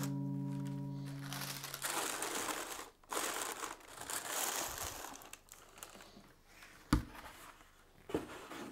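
Tissue paper crinkling and rustling as hands wrap shoes in a cardboard shoebox, with a sharp knock about seven seconds in and a lighter one near the end. A held musical chord fades out during the first two seconds.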